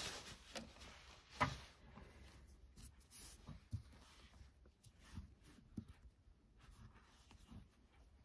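Faint rustling and soft taps of nylon paracord being handled and threaded with a crochet hook, the loudest rustle about a second and a half in.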